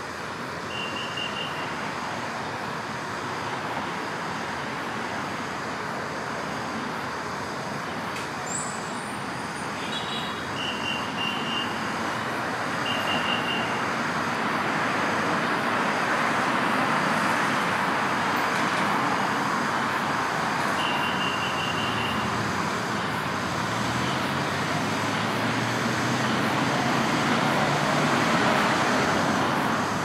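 Steady road traffic noise that grows louder through the middle, with a few short trains of high chirps and a low vehicle hum coming in near the end.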